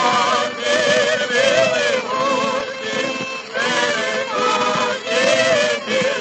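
1930 Columbia 78 rpm record of a Ukrainian folk song: a male vocal quartet singing in harmony with orchestral accompaniment.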